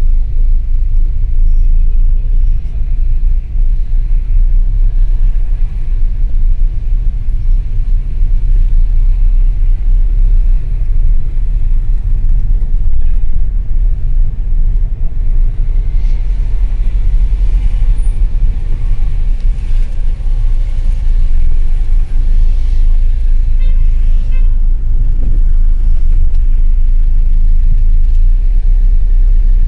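Steady low rumble of a car driving slowly in city traffic, heard from inside the cabin.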